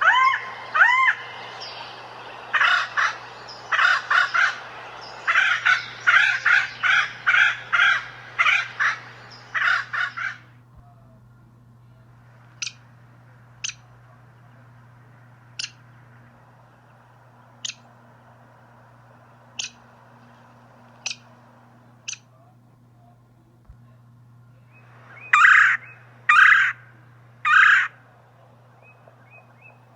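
A bird calling: a fast run of harsh, rasping calls for about ten seconds, then short sharp high notes every second or two, then three more harsh calls in a row and a last one near the end.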